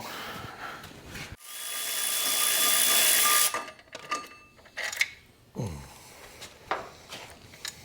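A power tool runs for about two seconds, building in level and then cutting off, followed by a few light metal clicks and knocks.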